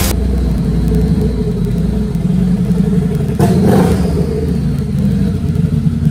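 Turbocharged Harley-Davidson V-Rod Night Rod Special's liquid-cooled V-twin running with a steady low rumble, revved briefly about three and a half seconds in.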